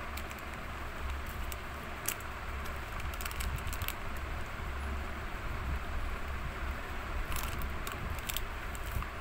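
Scattered light clicks and crackles over a steady low hum, clustered about two seconds in, between three and four seconds, and again between seven and eight and a half seconds.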